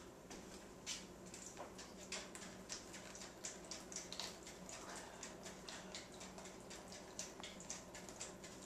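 Homemade water clock running: water falling from a tube onto a rocker of plastic cups makes a light, uneven patter of ticks and drips, several a second.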